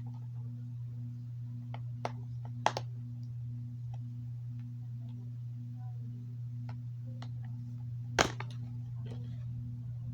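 Security tape being picked at and peeled off a plastic DVD case: scattered small clicks and crackles, with sharper snaps about two seconds in, just under three seconds in, and about eight seconds in. A steady low hum runs underneath.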